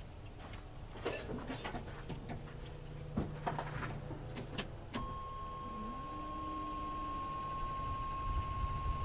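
Scattered clicks and knocks of someone handling the 1986 Chevy truck's controls, then a sharp click about five seconds in and a steady high warning tone as the ignition is switched on. The engine begins cranking right at the end.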